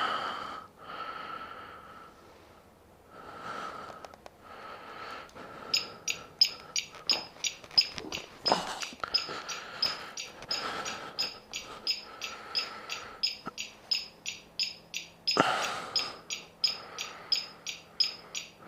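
Rapid, regular electronic beeping from an e-bike turn-signal kit's flasher buzzer, about three short high-pitched beeps a second, starting about six seconds in.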